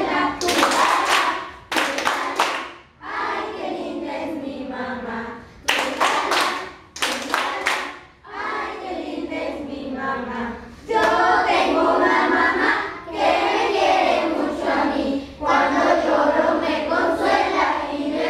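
A group of children singing a song about their mothers in unison, with several bursts of hand-clapping in the first half.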